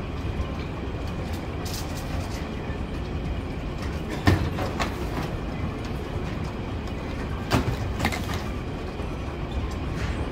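Airport baggage carousel running with a steady rumble. Two pairs of sharp knocks come about four and eight seconds in, each pair about half a second apart.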